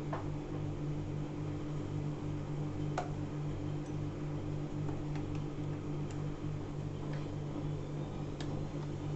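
Black+Decker one-cup coffee maker running: a steady low hum that pulses about twice a second, with a few light ticks scattered through it.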